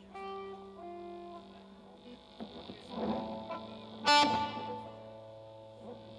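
Electric guitar playing the instrumental opening of a rock song through effects. It plays held, ringing notes that change every second or so, with one sharp, loud accent about four seconds in.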